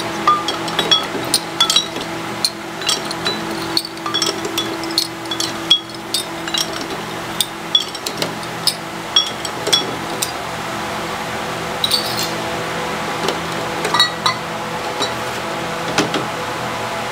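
Brown glass bottles clinking against one another in a plastic crate as they are uncapped with a bottle opener and lifted out. The clinks are sharp and ringing, about one or two a second, and grow sparser in the second half, over a steady low hum.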